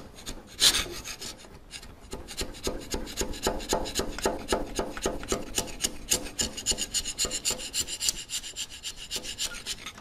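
Sharp woodworking chisel scraping old, hardened gasket remnants off the cast iron water-pump mounting face of a Ferguson TO-20 engine block, in rapid short strokes. One louder stroke comes under a second in, and a thin high ring rides over the strokes in the later part. This is the surface being cleaned before it is resealed.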